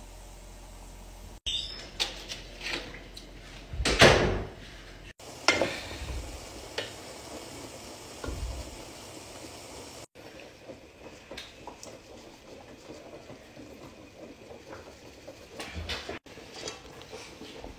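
Cookware handling: a stainless pot, its glass lid and a wooden spoon knocking and scraping, with the loudest clatter about four seconds in. The sound comes in short pieces that break off abruptly.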